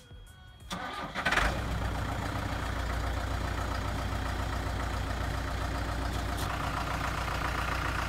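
The diesel engine of a 2001 New Holland LB75B backhoe loader cranking briefly and starting about a second in, then running at a steady idle.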